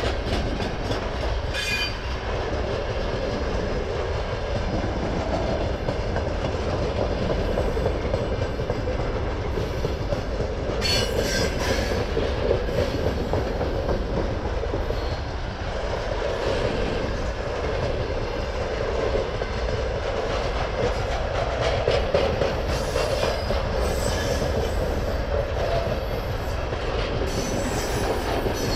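Freight train of covered hopper wagons rolling past, a loud steady rumble and clatter of steel wheels on the rails. Short high-pitched wheel squeals cut in about two seconds in, around eleven seconds, and several times near the end.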